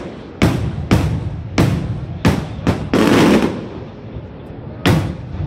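Aerial firework shells bursting overhead: a quick series of sharp bangs about every half-second to second, one longer burst about three seconds in, then a short lull before another bang near the end.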